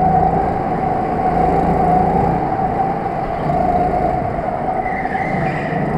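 Go-kart motor running steadily at speed, heard from on board the kart through a continuous drone. A fainter high tone joins about five seconds in.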